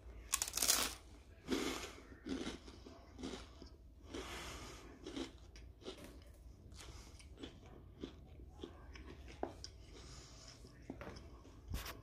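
Biting into hard, crisp toast, then crunchy chewing close to the microphone. The first bites are the loudest, and the crunches that follow grow gradually softer.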